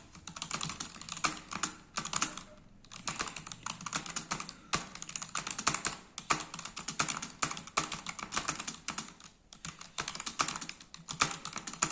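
Fast touch-typing on a budget Zebronics keyboard: a dense, uneven run of key clicks, broken by brief pauses about a third of the way in and again near the end.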